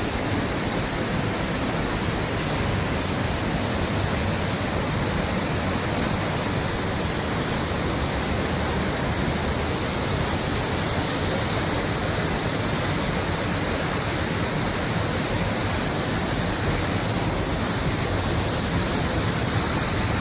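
Loud, steady rush of a waterfall pouring through rock inside a mountain.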